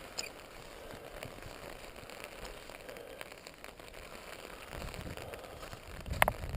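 Light rain pattering on an umbrella overhead, a soft even hiss with scattered small drop ticks. A short sharp sound breaks through about six seconds in.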